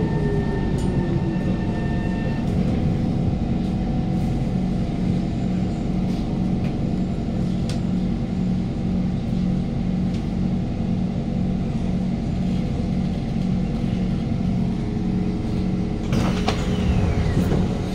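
Kawasaki Heavy Industries C151 train's GTO-VVVF traction motors whining as it comes to a halt, the whine stopping about two seconds in. The standing train then gives a steady, evenly pulsing low hum, with a short rattle and a falling sound near the end.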